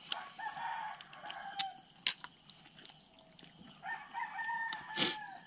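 A rooster crowing twice, each call held for over a second, the second one dropping in pitch at its end, with a few sharp clicks in between.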